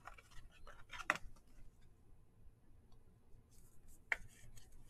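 Faint rustling and clicking of trading cards being handled and flipped through by hand, with a few short scrapes, the sharpest about a second in and just after four seconds.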